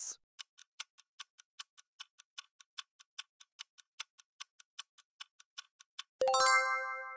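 Stopwatch ticking sound effect, about five quick ticks a second. About six seconds in it ends with a ringing bell-like chime marking that the countdown time is up.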